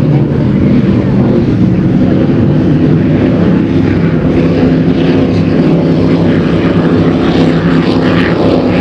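Offshore racing powerboats' engines running flat out in a loud, steady drone as several boats pass at speed.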